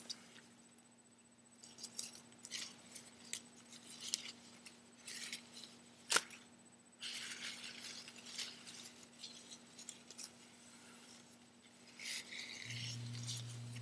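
Nylon webbing strap handled and rubbed, a run of soft swishes and scrapes with one sharp snap about six seconds in. Near the end an air conditioner switches on with a steady low hum.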